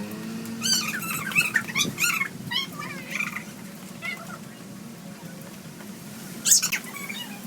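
Chirping calls in quick, high, wavering bursts, mostly in the first three seconds and once more, loudest, near the end, over a steady low hum.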